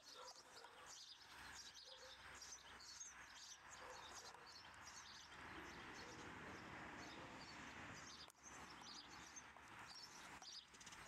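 Faint birdsong: small birds chirping repeatedly over a low, steady outdoor background hiss.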